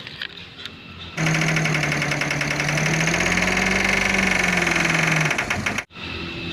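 Dump truck engine sound running with a fast, even rattle over a low note that rises slightly and falls back. It starts about a second in and cuts off abruptly near the end.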